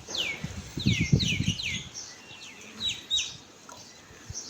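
Small birds chirping, a rapid series of quick downward-sweeping chirps that stops after about three seconds. A cluster of low thuds comes about a second in and is the loudest moment.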